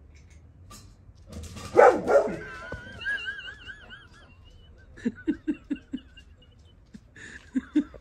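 Golden retriever barking, loudest about two seconds in. A wavering whistle-like tone follows, then a quick run of about five short, sharp sounds near the middle and two more near the end.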